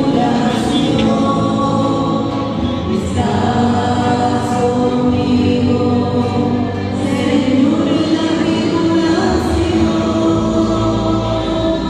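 Sung responsorial psalm: voices singing a melody in long held notes, with acoustic guitar strumming along and other guitars accompanying.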